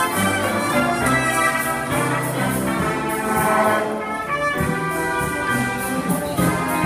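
Jazz big band playing live: saxophone, trumpet and trombone sections in ensemble over keyboard and upright bass.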